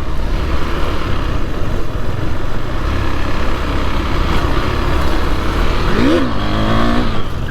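KTM Duke 390 single-cylinder motorcycle accelerating hard over a rushing ride noise, with a quick rev that rises and falls about six seconds in: a wheelie attempt in which the front wheel does not come up.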